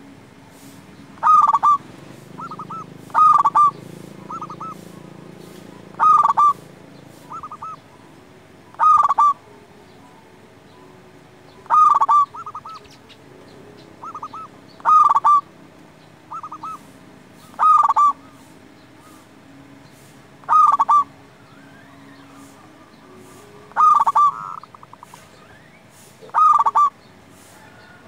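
Zebra dove (perkutut) cooing its rolling song, a loud phrase of quick notes repeated about every three seconds, with softer, shorter phrases between some of them.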